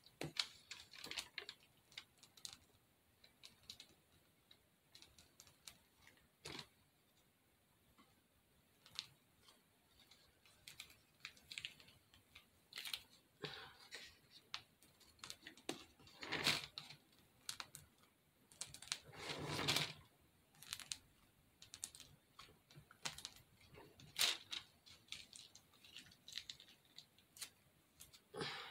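Quiet, scattered clicks and rustles of a plastic piping bag being squeezed while piping spackle, with a couple of louder rustles a little past halfway.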